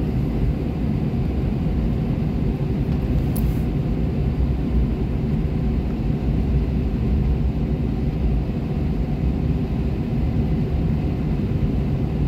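Steady low rumble of an airliner cabin as the plane taxis, from the engines at taxi power and the wheels rolling over the apron, with a faint steady hum above it.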